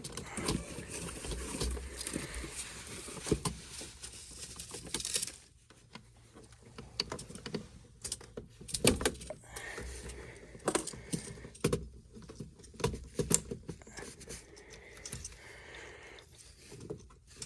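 Hands working with small metal parts and tools: scattered clicks, taps and light rattles. A steady hiss runs under the first five seconds and cuts off suddenly.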